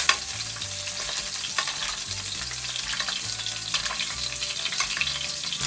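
Japanese sea bass fillets sizzling in hot butter and oil in a stainless frying pan, steady throughout, while the fat is spooned over them, with light clicks and scrapes of a metal spoon against the pan. The basting is meant to crisp the patches of skin that are still soft.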